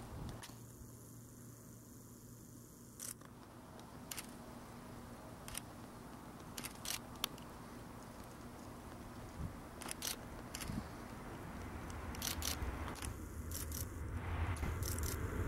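Distant Airbus A330 twin turbofans at takeoff power on the takeoff roll. A faint low rumble grows steadily louder over the last few seconds as the airliner lifts off. Scattered sharp clicks are heard throughout.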